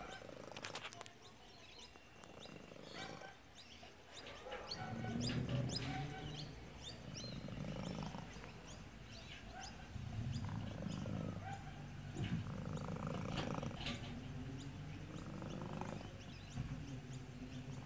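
Domestic cat making a low, rumbling noise that sounds like a car engine, in stretches of several seconds with short pauses between. It starts about a quarter of the way in.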